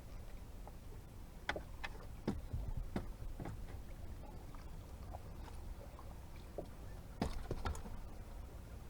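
Scattered knocks and clicks of handling inside a small boat, a few louder ones about a second and a half, two and three seconds in and again near seven seconds, over a low steady rumble of wind and water.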